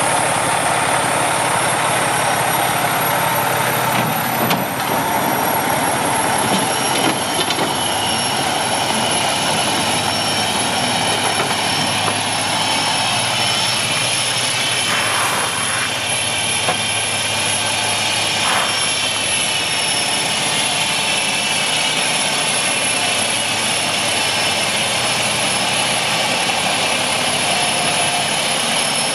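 Heavy-truck diesel engine of a Freightliner Century semi tractor running as the tractor drives off and turns, a steady engine noise with a steady high-pitched whine over it.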